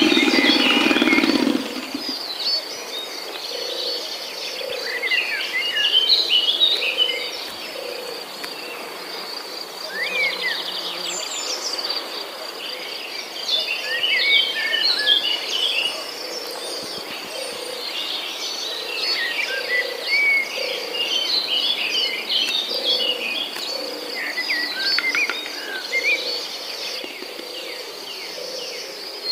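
Birds chirping over a steady, high insect trill, with soft low pulses repeating about once a second. An electric hand mixer beating batter runs at the very start and cuts off about a second and a half in.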